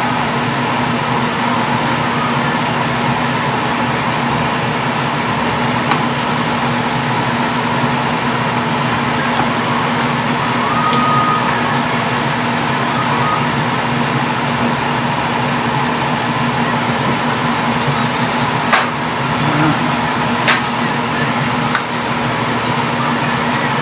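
Steady droning kitchen noise with a constant hum, and a few sharp metallic clicks of steel tongs against the stockpot as boiled prawns are lifted out, the loudest about two-thirds of the way in.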